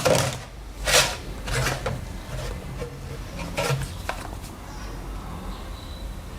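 Handling noises: a few short knocks and rubs, the loudest in the first second, then only a low background.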